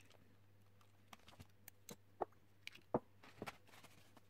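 Scattered light clicks and knocks from handling the opened Nikon SB-900 flashgun's plastic housing on a bench, the loudest about two and three seconds in.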